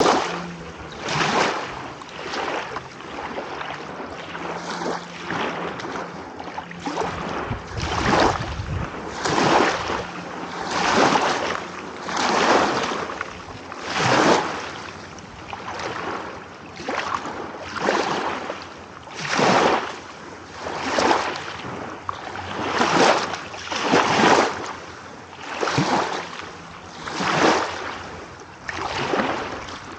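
Small waves lapping and washing in quick succession, one rising and falling wash about every second and a half.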